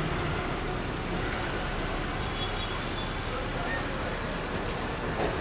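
Steady street noise of road traffic, an even hum with no distinct events.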